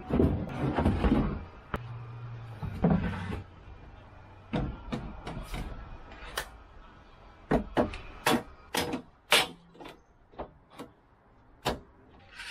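Gear being handled and lifted out of a boat's fiberglass floor storage locker: rustling and thuds in the first few seconds, then a string of separate sharp knocks and clicks through the second half.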